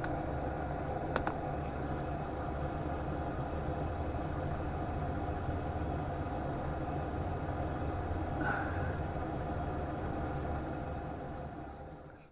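Diesel air heater running steadily: a constant fan and motor hum, with a short click about a second in, fading out near the end.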